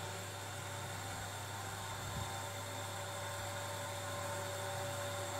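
Steady low electrical hum with an even hiss, unchanging throughout: recording noise, with no sound of the scene itself.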